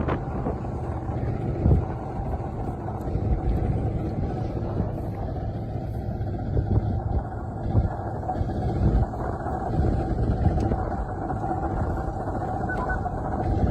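Semi truck engine and road noise, a steady low rumble while driving.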